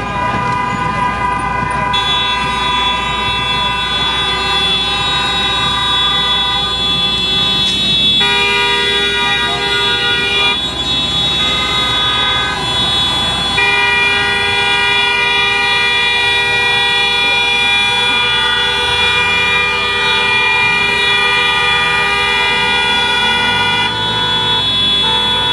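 Several car horns held down at once in a continuous, unbroken chorus of steady tones, the mix of pitches shifting a few times as horns join and drop out.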